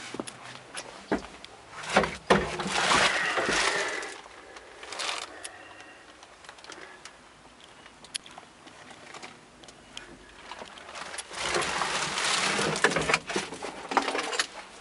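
Handling and rustling noise with scattered clicks and knocks as someone moves about in a mini excavator's cab, louder in two stretches, about two seconds in and again about eleven seconds in.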